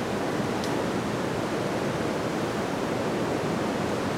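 Steady, even rushing outdoor background noise with no speech, and a faint short high tick about half a second in.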